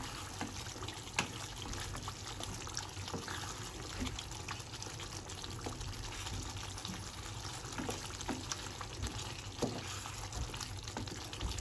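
Thick chicken gravy simmering and bubbling on a low flame in a pan, with a wooden spatula stirring through it and a few light ticks against the pan.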